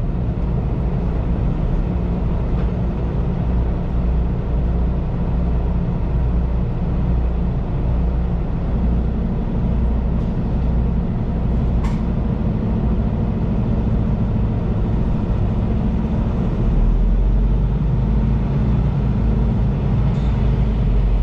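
Semi-truck's diesel engine running with a steady low drone, its pitch shifting slightly a couple of times; a single sharp click about halfway through.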